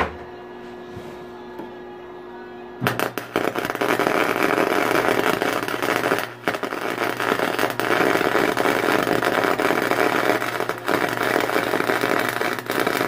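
Electric arc welding a nut onto the end of a steel valve spring compressor: the arc strikes about three seconds in and crackles steadily, with a brief break near six seconds. A single sharp click comes right at the start.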